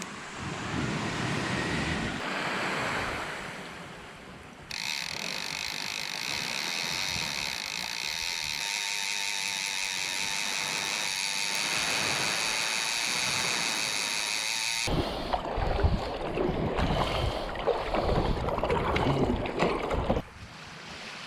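Surf washing on a beach, then about ten seconds of a steady high whine made of several even tones. Wind buffets the microphone in loud gusts for about five seconds near the end, then cuts off sharply.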